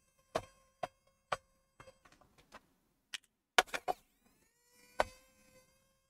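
Sharp plastic clicks of a screwdriver working at the screws on a laptop's plastic base. The clicks come about two a second at first, then in a quick cluster of louder ones a few seconds in, with one loud click near the end, over a faint steady hum.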